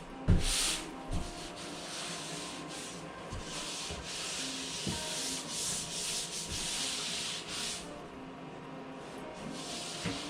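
Sanding of dried drywall joint compound: a rasping hiss that swells and fades with the strokes, thinning near the end. A sharp knock comes just after the start.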